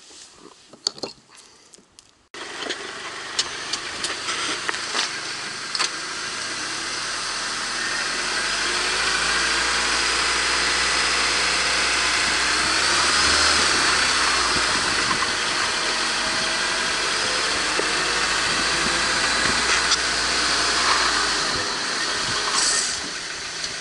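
A machine runs steadily with a hiss and a low hum. It starts suddenly about two seconds in, grows a little louder, and drops off suddenly near the end.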